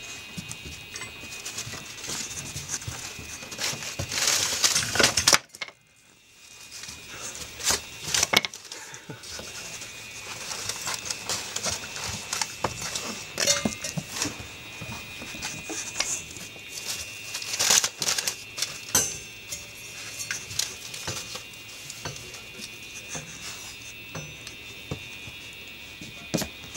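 Irish Wolfhound puppies playing with pieces of wood and newspaper: irregular knocks and clatters of wood, scratching and paper crinkling. A loud scuffle about four to five seconds in cuts off suddenly.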